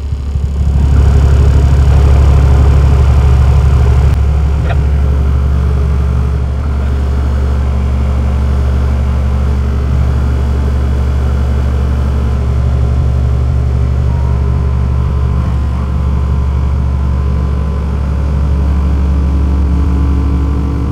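12-inch Timpano TPT-2500 subwoofer playing a loud, steady low bass test tone while being pushed at about 1200 watts, near its 1250-watt RMS rating, in an RMS torture test. The tone swells up over the first second, eases down slightly about four seconds in, then holds steady.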